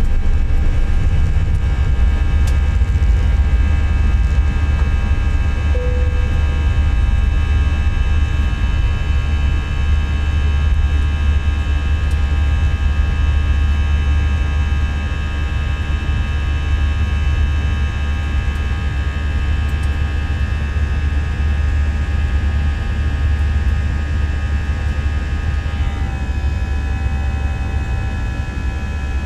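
Airbus A320 jet engines at takeoff thrust, heard from the cabin beside the wing: a loud, steady low rumble under a stack of steady whining tones as the airliner leaves the runway and climbs. Near the end the tones step down in pitch and the sound eases slightly as the engines spool back, typical of the thrust reduction to climb power.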